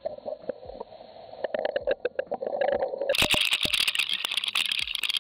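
Underwater river sound picked up by a submerged fishing camera: a faint hum with scattered clicks and rattles, then, about three seconds in, a sudden louder rushing hiss thick with sharp clicks.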